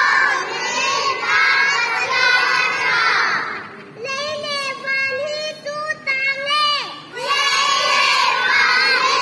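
A large group of young children singing loudly together, half shouting. Their voices thin out to a few held notes for a few seconds in the middle, a voice slides down in pitch, and then the whole group comes back loud.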